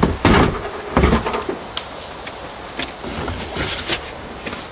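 A Mr. Heater Buddy portable propane heater being handled and set down on a plywood shelf: a few heavy knocks and thumps in the first second, then lighter clicks and bumps as it is settled in place.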